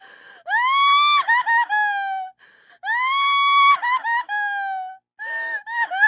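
A woman crying hard: two long, high-pitched wails, each rising, holding, then breaking into short sobs and trailing down, with a sharp breath drawn between them. Near the end, shorter choppy sobs.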